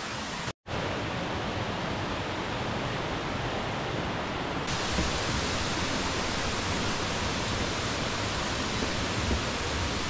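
Steady rushing of a mountain stream tumbling through a rocky valley, a dense hiss that drops out for an instant about half a second in and turns slightly brighter near halfway.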